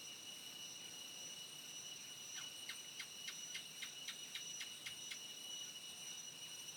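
Steady, faint, high-pitched chorus of insects. In the middle, a run of about a dozen short chirps comes at about four a second for around three seconds.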